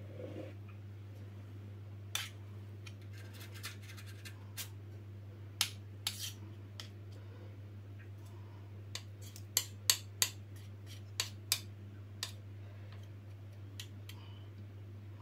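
Metal spoons clinking and tapping against each other, the plastic mixing bowl and the muffin tin as chocolate cake batter is scraped into paper cupcake cases. Scattered light clicks, with the loudest quick cluster about ten seconds in, over a steady low hum.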